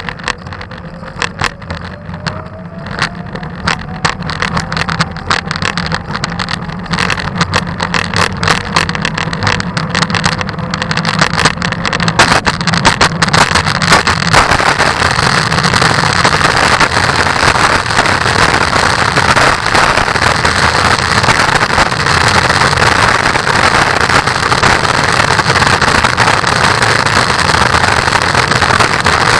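Wheels rolling over a wet wooden plank bridge, clicking rapidly and irregularly across the board joints, with a faint whine rising in pitch in the first few seconds. About halfway through they run onto asphalt and the sound becomes a steady, loud road noise.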